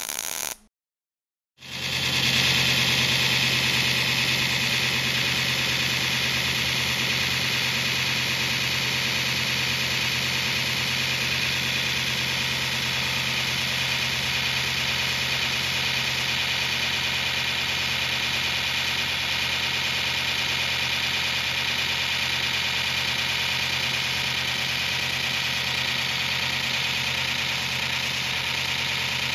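Fein Grit GI150 belt grinder with its centerless grinding attachment running: a steady hum under a strong, even hiss. It starts about a second and a half in, after a short silence.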